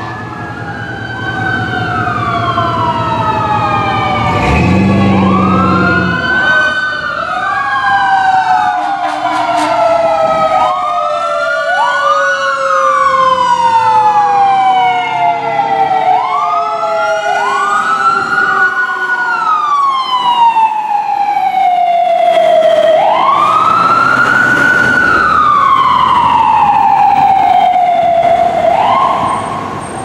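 Fire engine siren wailing, its pitch sweeping up and falling away again and again. A low air horn blast sounds about four and a half seconds in, lasting over a second.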